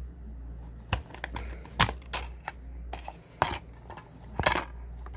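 Plastic DVD case being handled and snapped open: a scatter of sharp clicks and clatters, the loudest about two seconds in and again near the end, over a steady low hum.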